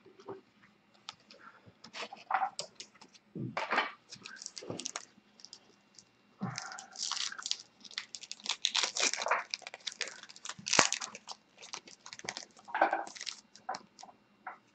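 Trading cards from a 2015 Bowman baseball box being handled and sorted by hand: irregular rustling and crinkling with short clicks and snaps, in quick clusters that get busier about halfway through.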